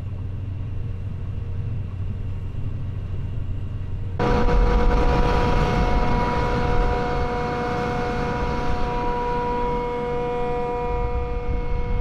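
Grain combine harvester running while cutting wheat: a steady low drone heard from inside the cab. About four seconds in it gives way to the same combine heard up close outside, louder and rougher, with a steady high whine from its machinery.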